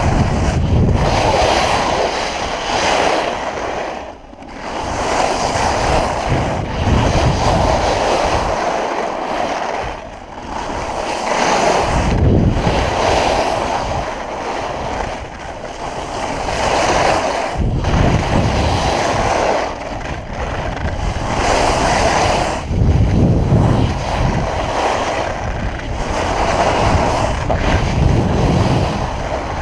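Skis scraping and carving over granular snow through a run of turns, the noise swelling and easing every couple of seconds, with wind buffeting the camera microphone.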